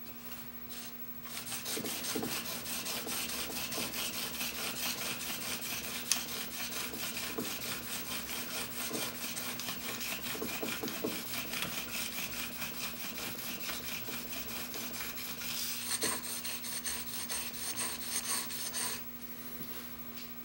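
Steel chisel bevel, held in a honing jig, rubbed back and forth on a DMT extra-fine diamond plate: a steady rasping scrape with quick repeated strokes, starting about a second in and stopping near the end. This is the final honing on the extra-fine grit.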